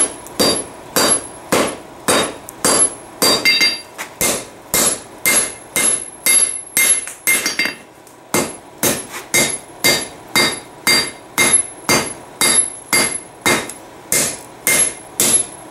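Hand hammer forging a red-hot piece of Heller farrier rasp on a steel anvil, about two blows a second with a short pause about eight seconds in. Each blow gives a sharp metallic clang with a brief ring.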